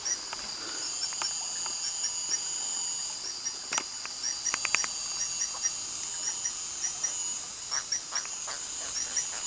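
Steady high-pitched insect chorus with a short chirping call repeating about twice a second. A few sharp close clicks come about four seconds in, with lighter taps later on.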